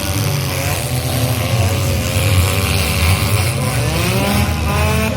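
Several demolition derby cars' engines running loudly together, revving up and down.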